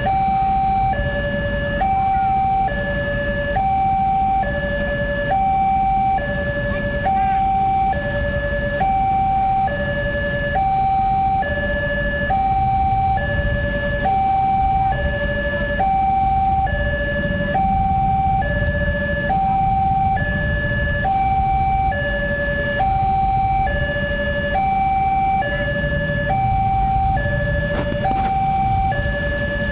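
Railway level-crossing warning speaker sounding its electronic two-tone alarm: a higher and a lower tone alternate, each held just under a second, repeating steadily. A low traffic rumble runs underneath.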